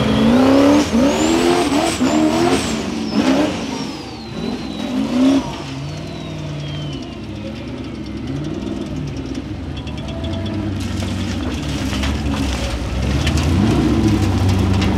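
Formula Offroad hill-climb buggy's engine revving hard in repeated bursts for the first few seconds, with a high whine that climbs and then slides slowly down. It then settles to a lower, steadier run and picks up again near the end.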